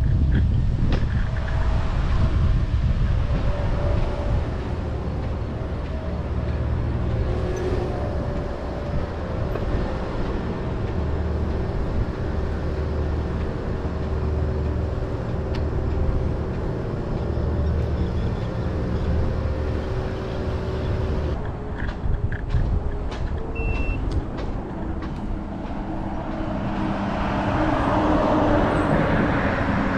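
Ride on a Segway Ninebot Max electric scooter: a continuous low rumble with a steady hum, broken by a few clicks a little past the middle. In the last few seconds, road traffic passes close by, a city bus among it, the noise swelling.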